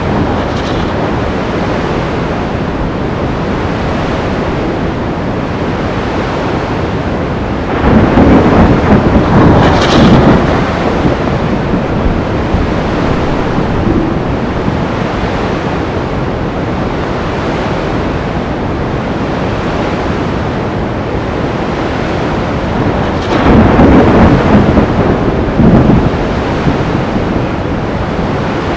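Sea storm: a steady noise of surf and wind, broken twice by a louder rumbling crash of thunder a couple of seconds long, about eight seconds in and again about twenty-three seconds in.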